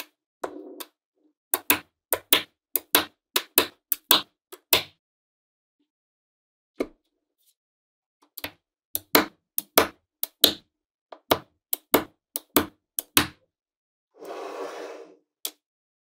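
Small metal magnetic balls clicking together as blocks of them are pressed and snapped onto a magnet-ball structure: runs of sharp clicks, with a pause in the middle. A short rustling noise near the end.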